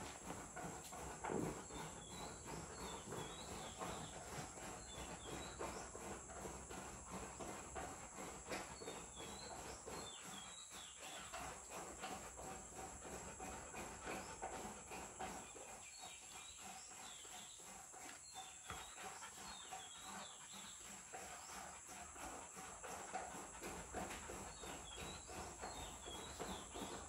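A steady high insect drone with small groups of short bird chirps recurring every few seconds. Over it come faint scuffs and clicks from a Rottweiler puppy and its mother playing with a cloth on a concrete floor.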